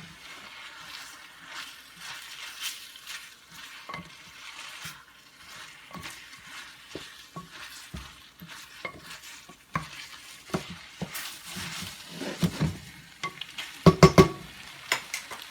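Spaghetti and shrimp being stirred and tossed in a sizzling frying pan, the utensil scraping and knocking against the pan, with a cluster of louder knocks near the end.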